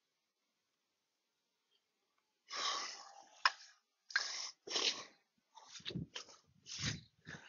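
Dead silence for about two and a half seconds, then a string of about seven short bursts of rushing noise over the call's headset audio, with one sharp click in the middle.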